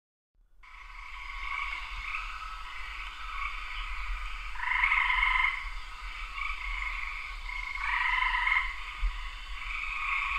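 A chorus of many frogs calling together, fading in about half a second in and growing louder twice, around five and eight seconds in, over a faint low rumble.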